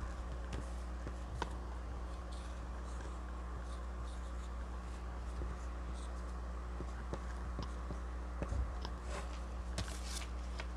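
Dry-erase marker writing on a small whiteboard, a run of soft scratchy strokes over a steady low hum. Near the end a paper card is handled with a few crisp rustles.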